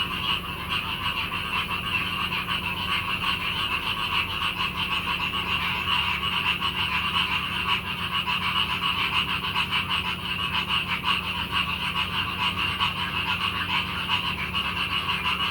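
Frog chorus: many frogs calling at once in a dense, continuous mass of rapid pulsed calls.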